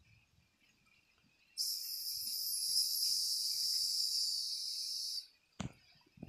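A steady high-pitched hiss starts suddenly about a second and a half in, runs for nearly four seconds, and cuts off just as suddenly, followed by a single sharp click.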